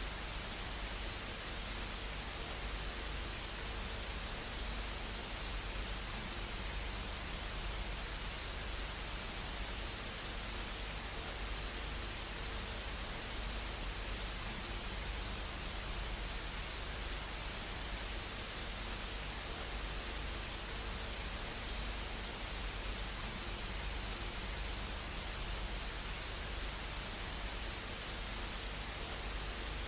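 Steady static hiss, even and unbroken throughout, with a faint low hum beneath it.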